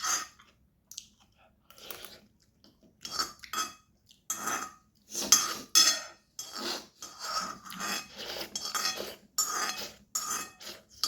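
Eating spicy instant noodles from a bowl: a quick run of short slurps and utensil-on-bowl sounds, about one to two a second, getting busier from about three seconds in.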